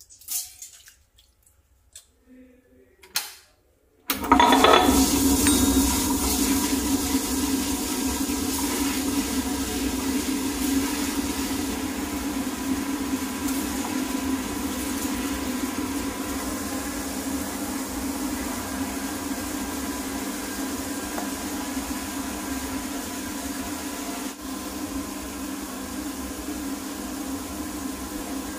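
A few short knocks, then about four seconds in a table-top wet grinder switches on and runs steadily with a constant hum: its stone rollers are turning in the stainless steel drum, grinding soaked raw rice and grated coconut into dosa batter.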